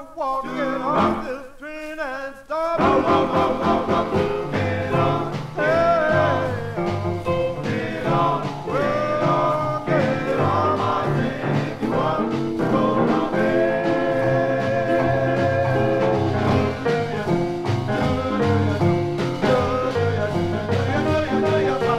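A 1953 vocal-group record playing from a 78 rpm disc transfer: group singing with a band, sparse at first, with the full band coming in about three seconds in.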